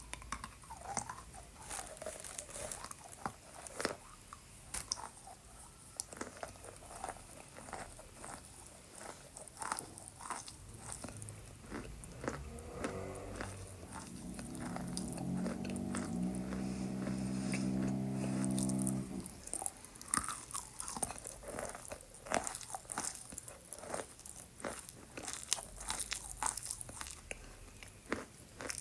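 Wet chalk being bitten and chewed close to the microphone, with many small crisp crunches and crackles. From about twelve seconds in, a low hum with a stepping pitch is heard for about seven seconds.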